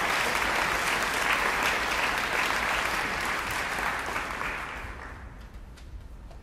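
Theatre audience applauding, the clapping dying away about five seconds in.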